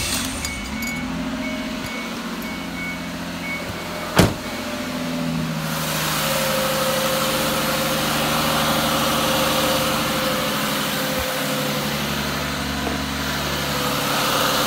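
Mazda Tribute 3.0-litre V6 idling steadily just after start-up, freshly refilled with coolant after a water pump replacement. A single sharp click about four seconds in is the loudest moment, and a broader rushing noise joins the engine from about six seconds on.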